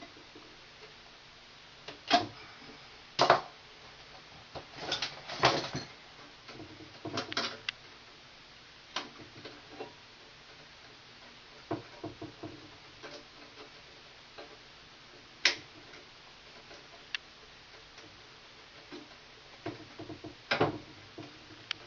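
Wire cutters and strippers cutting and stripping 14-gauge Romex wires: sharp clicks and snips at irregular intervals, with the rustle of wires being handled between them.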